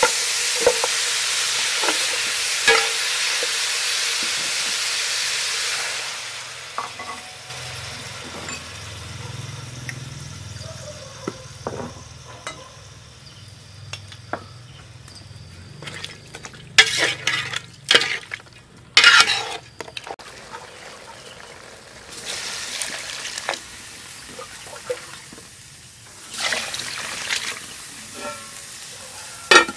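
Pork bones tipped into a hot aluminium pot, a loud sizzling hiss with knocks of bone on metal that dies down after about six seconds. Then quieter cooking sounds, with scattered clatter and several short loud bursts of hiss as seasonings go in and the broth comes to a boil.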